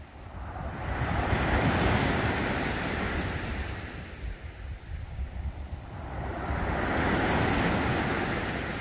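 Ocean surf washing onto a beach: two slow surges of waves, each swelling and ebbing, about five seconds apart.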